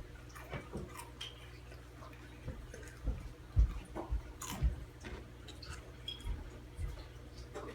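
Mouth chewing and crunching crunchy rolled tortilla chips close to the microphone: irregular crisp crunches and clicks, with a few heavier low thumps around the middle.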